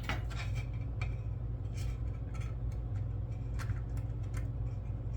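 Scattered light clicks and taps of plastic scale-model parts being handled and fitted together, over a steady low hum.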